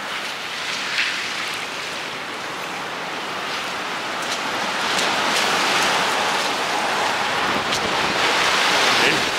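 Harbour waves at high water washing and splashing against the quay, swelling louder from about halfway through, with a few sharp splashes.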